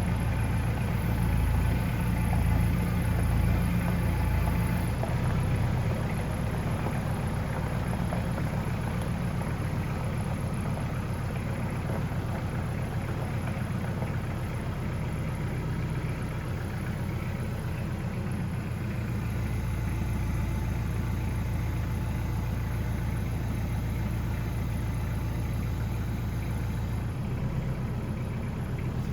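Steady low mechanical drone, shifting slightly in tone about five seconds in and again about nineteen seconds in.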